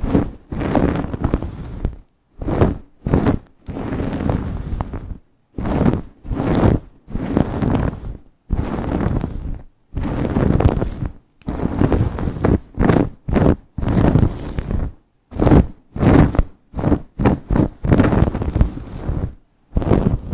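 Long acrylic nails and fingertips scratching and rubbing fast through hair in a vigorous scalp massage, in irregular bursts of scratchy rustling broken by short silences.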